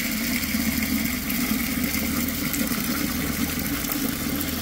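Water pouring steadily from a spigot into a plastic bucket of dry feed mix, soaking the feed until it starts to float.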